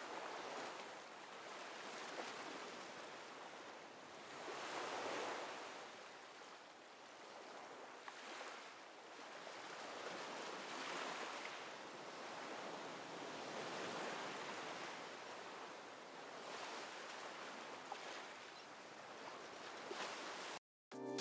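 Gentle sea waves washing in, the sound swelling and fading every few seconds; it cuts off just before the end.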